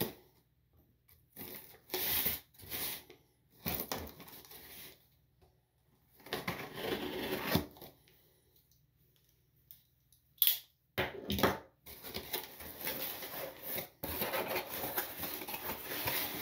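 A blade slitting the tape along the seam of a cardboard shipping box, then the cardboard flaps being pulled open and handled, in a series of separate scrapes and rustles with short pauses between them. A sharp click comes about ten seconds in.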